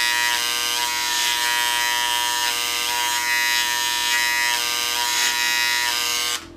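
Handheld electric engraving pen buzzing steadily as its tip marks a number into the engine block. The buzz cuts off suddenly near the end.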